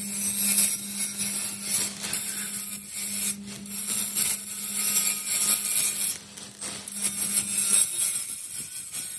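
A power tool working on metal: a steady motor hum under a rough, uneven hiss that swells and dips, easing off briefly near the end.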